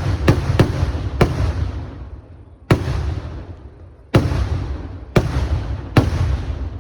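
Fireworks exploding: a quick run of three loud bangs in the first second or so, then four more about a second apart. Each bang is followed by a rolling rumble that dies away.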